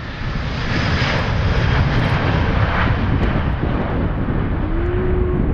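Airbus A330 airliner's twin jet engines at takeoff thrust during the takeoff roll and liftoff: a loud, steady rumble with a rushing hiss.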